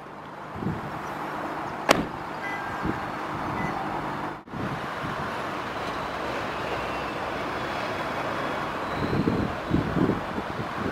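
A car door being shut with one sharp knock about two seconds in, over a steady outdoor hiss; near the end, wind gusts rumble on the microphone.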